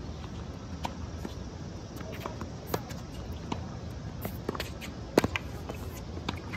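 Tennis ball struck by racket strings and bouncing on a hard court: sharp pops spaced a second or more apart, the loudest about five seconds in, with player footsteps on the court.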